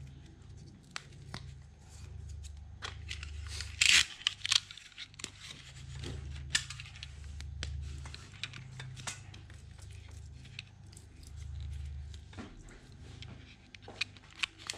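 Coaxial TV cable being stripped and cut by hand to fit a new connector: scattered snips, clicks and short scrapes, the loudest about four seconds in, over a low hum.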